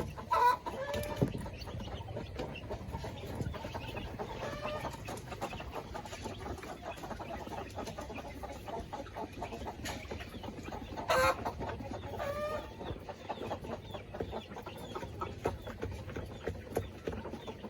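Village chickens clucking, with a few short calls scattered through and the loudest about eleven seconds in, over faint, steady clicking.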